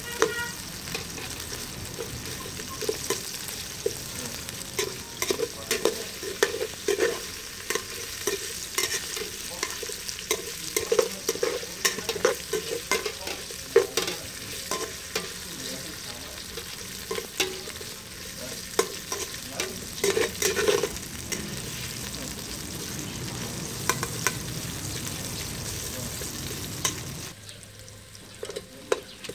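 Sliced aromatics frying and sizzling in oil in an aluminium pot, stirred with a long metal ladle that scrapes and clinks against the pot again and again. The sizzle and clinking fall quieter near the end.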